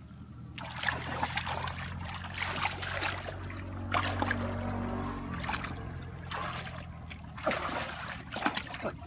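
Hands splashing and churning shallow muddy water while groping for fish, in irregular bursts. A low steady hum sounds underneath for roughly the first five seconds, then stops.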